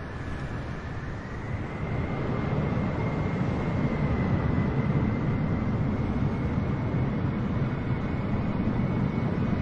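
Jet airliner engine noise heard inside the cabin: a deep rumble with a thin high whine, rising in level and slightly in pitch over the first two seconds, then holding steady.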